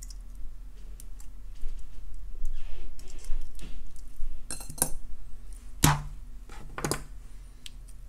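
Small metallic clicks and clinks of jewelry pliers working a wire loop closed, with wire, metal findings and glass and gemstone beads tapping together; three sharper clicks come in the second half.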